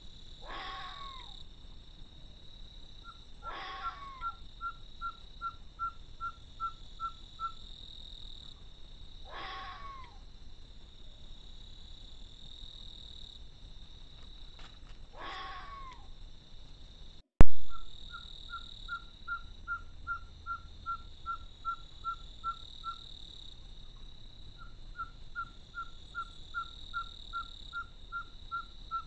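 Four short, hoarse, cat-like yowling calls from a fox, spread through the first half, over a steady high insect drone. Between the calls, runs of a short whistled note repeat about three times a second. One sharp, loud click about halfway through.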